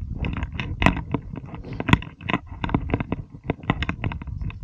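Footsteps crunching and scraping on loose limestone gravel and stones while walking down a steep slope: many quick, irregular crunches and clicks over a low rumble.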